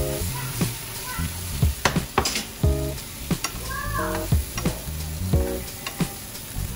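Whole prawns sizzling in a hot frying pan as they are stirred and turned, with frequent sharp clicks of the utensil against the pan.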